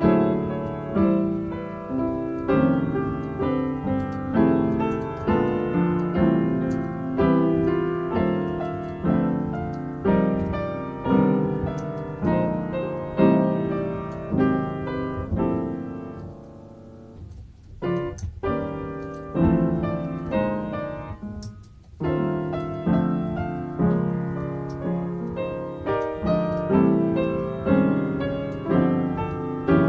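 Solo piano improvisation: chords and melody played freely over an improvised chord progression, softening and thinning out about halfway through, then filling out again.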